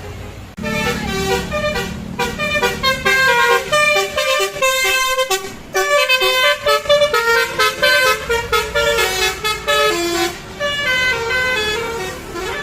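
Minibus's Basuri telolet horn sounding a long run of multi-tone musical toots, the notes stepping up and down in quick sequence with a short break about halfway through. A vehicle engine hums low under the first couple of seconds.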